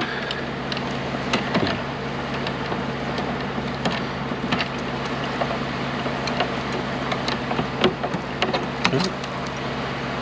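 Pliers working at a rusted-on fitting to free a metal chain: scattered light metal clicks and chain clinks. A steady low hum runs underneath.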